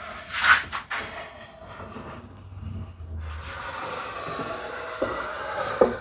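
Pencil drawn along the edge of a solid cherry board to mark a chamfer guideline: a steady scratchy hiss, with a sharp knock about half a second in and another near the end.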